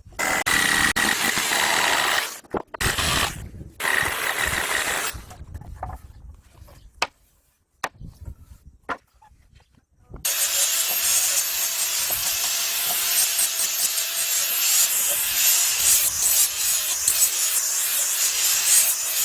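Power tool working on wood, starting and stopping in a few short runs with sharp clicks between them, then running steadily from about ten seconds in.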